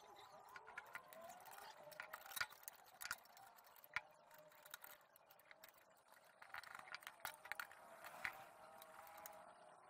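Faint, scattered clicks and taps of hands handling the wiring and metal parts inside a rice cooker's base, a few sharper clicks standing out, the loudest about four seconds in.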